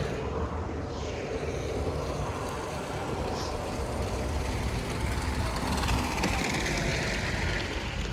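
Blizzard wind buffeting the microphone with a steady, gusty rumble.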